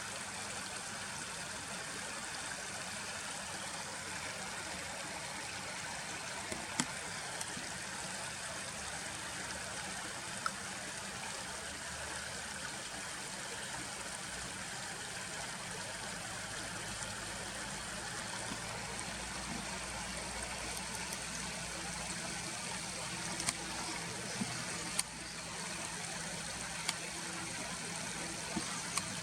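Steady rush of a stream's flowing water. A few faint sharp clicks come through, and a low hum joins in about two-thirds of the way through.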